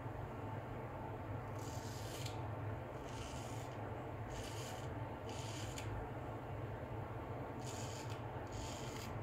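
Full-hollow-ground straight razor (Filarmonica Tridur) scraping through lathered stubble in about six short rasping strokes, with pauses between them.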